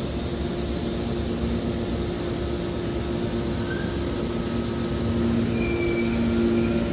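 Hydraulic metal baler running with a steady machine hum and noise, and a brief high-pitched metallic squeal about five and a half seconds in.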